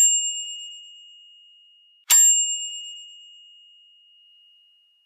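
A bus bell struck twice, about two seconds apart, each ding ringing on and fading away slowly.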